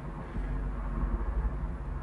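A low, uneven rumble that grows louder about half a second in.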